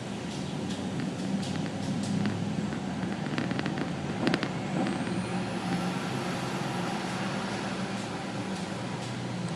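Nissan Titan pickup's V8 engine running steadily, with sharp clicks at irregular intervals and a quick cluster of them about three to four and a half seconds in. The clicking comes from the truck's worn emergency-brake shoes.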